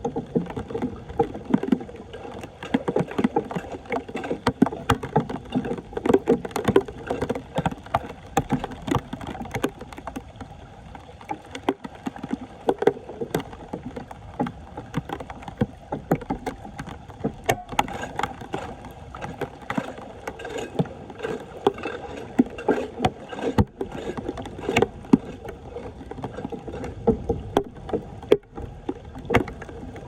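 Shallow floodwater splashing and sloshing, with frequent sharp knocks and splashes, as a clogged street drain is cleared by hand.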